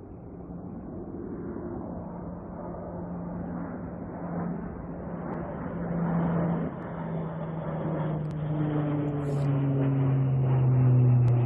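An engine running and growing steadily louder, its hum dropping slightly in pitch as it comes on, with a few faint clicks near the end.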